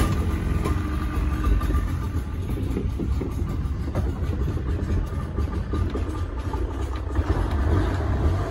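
A 40 hp outboard motor running steadily and driving a small speedboat along a river: an even, deep engine drone with water and wind noise over it, starting abruptly.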